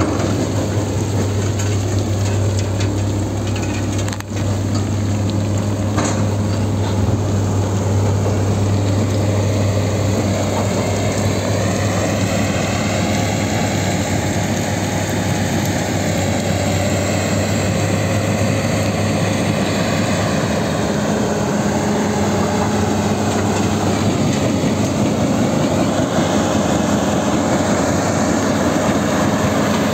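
Terex Finlay J-1160 tracked jaw crusher running steadily under load: a constant low diesel hum with the rumble and rattle of concrete and rubble being crushed and carried off on the conveyor.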